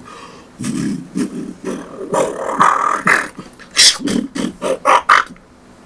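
Beatboxed imitation of a Transformers robot transforming: a throaty K sound run together with a rolled R, broken into short choppy bursts and ending in a few sharp separate hits.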